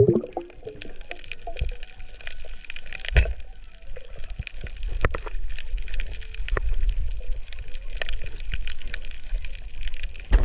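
Underwater sound on a reef picked up through a camera housing: a steady hiss and low water rumble with a dense crackle of short clicks, and one louder knock about three seconds in.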